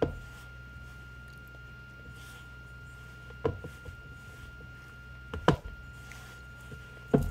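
Hands mixing flour and mashed squash into dough in a stainless steel bowl: faint rubbing and squishing, with four sharp knocks against the bowl, over a steady low hum and a thin high whine.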